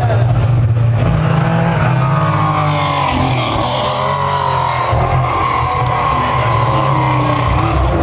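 Mk1 Volkswagen Golf rally car's engine running loud at high revs as the car rounds a tight hairpin and accelerates away.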